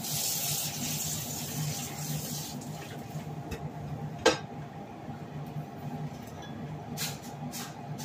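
Pot of noodles boiling on a gas stove burner: a hiss that fades over the first few seconds above a steady low hum. A single sharp click comes about halfway through, and light knocks near the end as a spoon goes into the pot.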